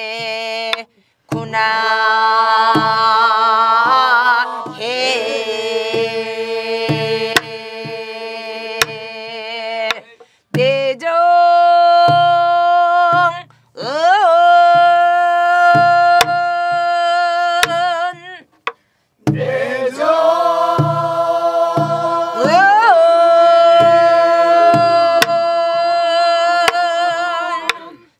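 Singing of the Namdo folk song yukjabaegi in long, slow phrases with a wide, wavering vibrato and short breath breaks between them. Low strokes on a buk barrel drum keep the slow 18-beat rhythm underneath, with an occasional sharp click of the stick.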